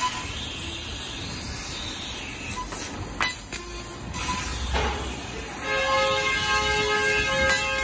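CNC laser cutter cutting 15 mm steel plate: a steady hiss from the cutting head, with a sharp crack about three seconds in. Past halfway a steady whine with several pitches joins it.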